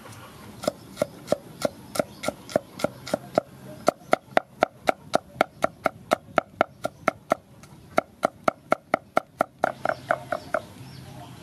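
Cleaver chopping garlic cloves on a thick round wooden chopping board: a steady run of sharp knocks of the blade on the wood, about three a second, with a brief pause about two-thirds through.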